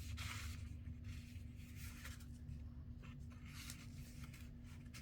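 Faint paper handling: soft rubbing and rustling of paper being worked by hand, in several short strokes, over a steady low hum.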